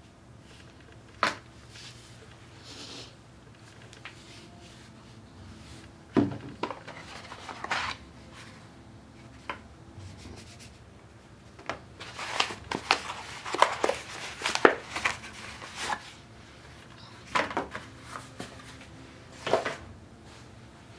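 Handling noise from unpacking a portable Bluetooth speaker on a wooden floor: scattered knocks and taps as the speaker and other things are set down and moved. About halfway through comes a stretch of paper leaflets rustling and shuffling.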